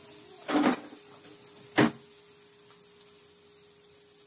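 A brief scrape, then a single sharp metallic clink as a metal ladle is set into an aluminium pressure cooker, over a faint steady hum.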